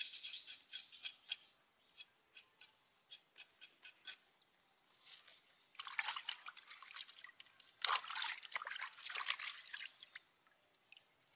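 A knife scraping the skin of a raw pig's leg in short, quick strokes, then water splashing and sloshing as the leg is rubbed and rinsed in a bowl of water.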